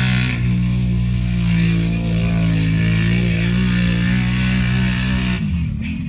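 ATV engine held at high revs while the quad churns through a deep mud hole, its pitch wavering a little, then dropping near the end as the rider backs off on reaching the exit.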